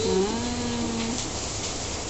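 A child's wordless drawn-out vocal sound, held on one pitch for about a second, over a steady hiss of rain.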